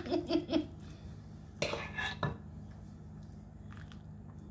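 A metal serving spoon scooping pasta and knocking against a ceramic baking dish: two sharp knocks about a second and a half and two seconds in, then a few faint clicks. A short pulsing vocal sound trails off in the first half second.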